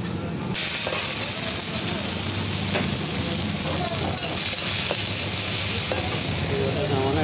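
Hot oil sizzling steadily in a wok, starting abruptly about half a second in, with a few light scrapes and taps of a metal spatula stirring the pan.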